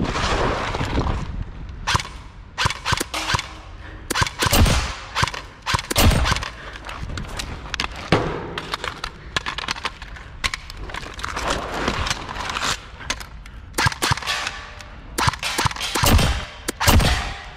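Airsoft electric rifle (AEG) firing short bursts of rapid clicking shots, again and again, some bursts close together.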